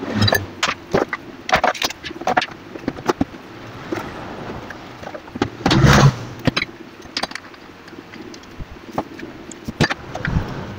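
Irregular clicks and knocks of plastic fan parts being handled and fitted together on a workbench, with a louder thump about six seconds in.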